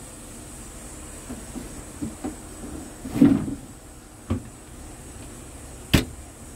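Handling knocks and bumps inside a truck cab over a steady low hum: a few light knocks, a louder muffled bump about three seconds in, and a sharp click near the end, the loudest of them.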